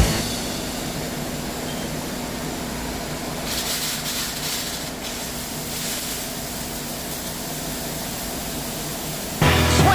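CNC machining center (MCT) running during a cut: a steady mechanical hum under a hiss that brightens for a while around four seconds in. Music cuts back in near the end.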